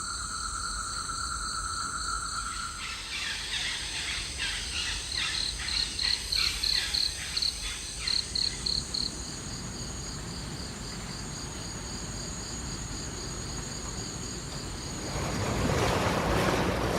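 Tropical insects chirring in steady high pulsing tones, with a loud run of rapid repeated animal calls in the middle. Near the end a broad rushing water noise swells in.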